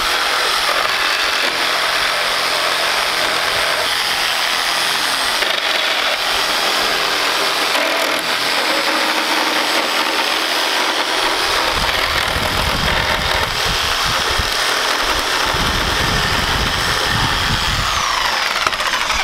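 Corded reciprocating saw running continuously at a steady level, its blade cutting through the nails that join wooden wall studs.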